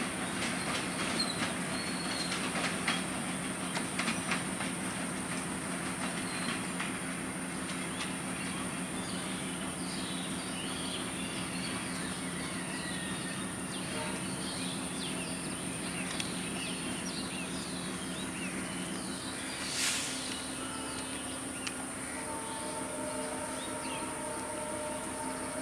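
Passenger train rolling away along the track, its wheels clicking over the rail joints for the first few seconds, under a steady low rumble. Short high chirps sound in the middle, and a brief sudden noise comes about twenty seconds in.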